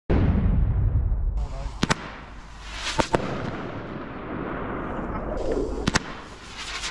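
Lone Wolf 20 mm single-shot roman candle tubes firing. A loud low boom at the start dies away over about a second, then come sharp cracks: one about two seconds in, two close together at three seconds, and another near the end.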